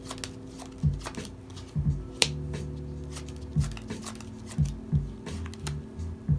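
Playing cards being handled and dealt onto a padded close-up mat, giving sharp, irregular clicks and snaps. The strongest snap comes about two seconds in. Background music with a deep bass pulse runs underneath.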